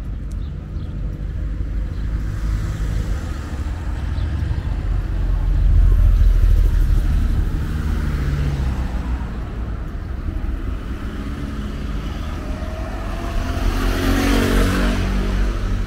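Street traffic: passing cars with a steady low rumble that swells about six seconds in. Near the end a car and a motor scooter pass close by, and a brief engine note rises over the rumble.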